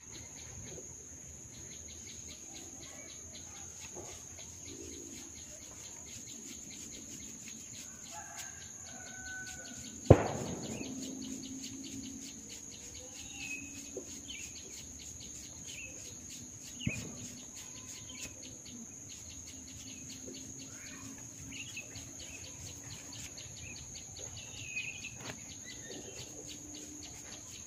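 Neck joints cracking under manual manipulation: one loud sharp crack about ten seconds in and a smaller one about seven seconds later. Behind them run a steady high insect drone and occasional bird chirps.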